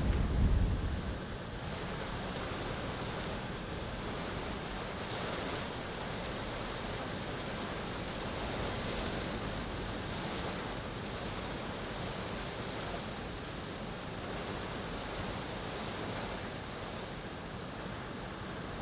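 Storm wind rushing steadily in a winter snowstorm. A loud low buffeting of wind on the microphone dies away about a second in.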